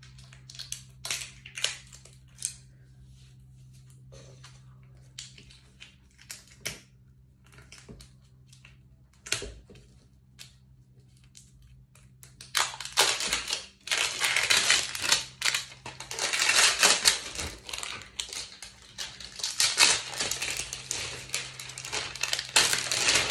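Plastic wrapping being peeled and torn off a new cricket bat. It starts as sparse crinkles and small tearing clicks, then from about halfway turns to loud, dense crinkling and rustling as the wrap is pulled off.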